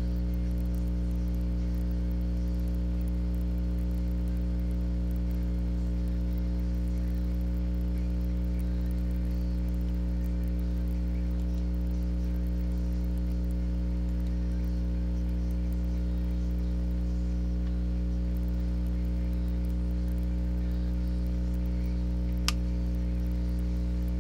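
Steady electrical mains hum with its overtones. A single short click near the end.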